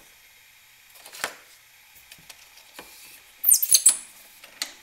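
A few light clicks from the wrench on the serpentine belt tensioner. About three and a half seconds in comes a quick run of high squeaks as the rubber serpentine belt is pulled off its pulleys.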